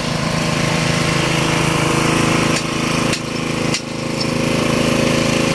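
Small petrol engine on a road-work cart running steadily at an even speed, with a few brief knocks around the middle.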